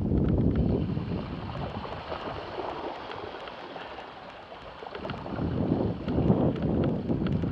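Wind buffeting the microphone of a moving mountain bike, with the tyres swishing through mud and puddled water and small rattles from the bike. The noise eases off in the middle and picks up again about five seconds in.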